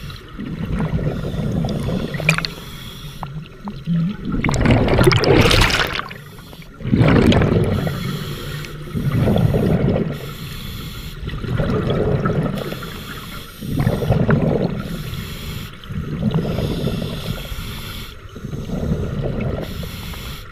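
Scuba diver breathing through a regulator underwater: exhaled bubbles gurgle past the microphone in rhythmic bursts about every two seconds, with the loudest burst about five seconds in.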